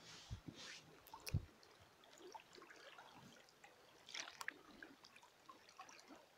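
Faint trickling and dripping of river water along the edge of melting shelf ice, with scattered small ticks and splashes.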